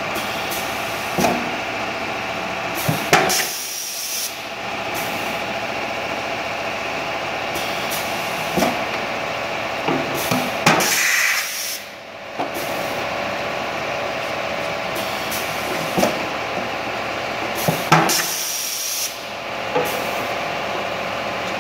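Pneumatic 5-gallon bottle cap decapper running with a steady machine hum, clicks and clunks from its grippers and cylinders, and three short hisses of exhausting compressed air about seven seconds apart, one for each decapping cycle.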